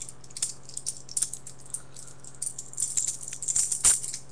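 Balisong (butterfly knife) being flipped: its handles and blade clicking and rattling against each other in quick, irregular taps, busier toward the end, with one louder clack shortly before the end.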